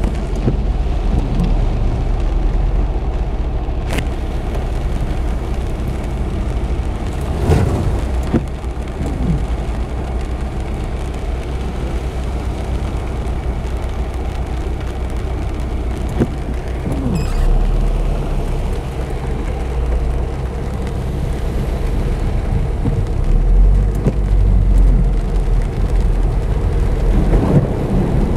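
Heavy rain beating on a car's roof and windscreen, heard from inside the cabin, over a steady low rumble, with a few sharp knocks.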